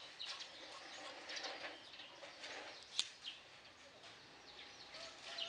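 Faint chirping of birds, a scatter of short high calls, with one sharp click about three seconds in.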